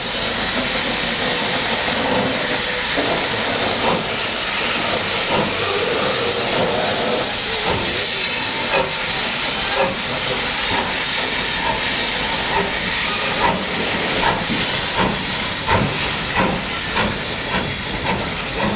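Steam locomotive letting off steam: a loud, steady hiss, with irregular short clicks and knocks through the second half.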